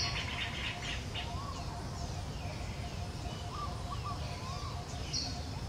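Birds chirping in the background: short high calls that slide downward, repeated irregularly, with a few lower warbled notes around the middle, over a steady low rumble.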